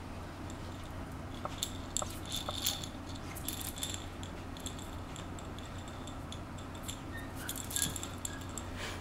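Light clicking and rattling as a puppy scrabbles at and pushes a plush toy across a smooth floor, in scattered clusters about one and a half seconds in and again near the end, over a steady low hum.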